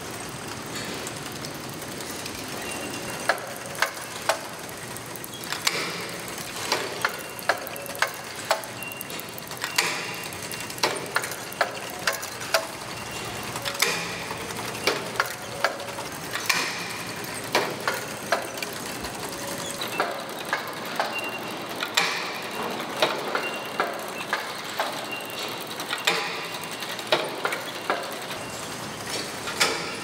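Overhead garment-hanger conveyor running with a steady machine noise and many irregular sharp clacks as plastic hangers knock along the screw-drive rail. A short high beep sounds now and then.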